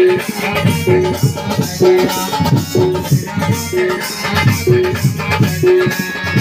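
Ramdhun devotional music played on percussion: drums beating a steady rhythm, with a short pitched note about once a second, over jingling metal percussion.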